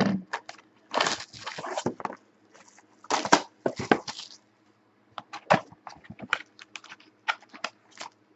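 Plastic shrink-wrap being torn and crinkled off a 2014-15 Panini Preferred trading card box, in two rustling stretches, then a run of short clicks and taps as the cardboard box is opened and a pack lifted out.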